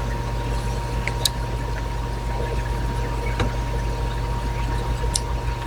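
A few light metallic clicks, spaced about two seconds apart, as small hex screws are worked out of a knife's handle with a hex key, over a steady low background hum.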